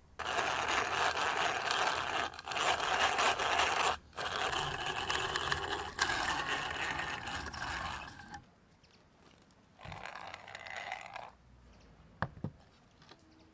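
Geared hand drill cranked by hand, its bit boring into a weathered wooden board: a steady grinding scrape of bit on wood, with two brief breaks, stopping about eight seconds in. A shorter spell of the same sound follows about ten seconds in, then a couple of sharp knocks near the end.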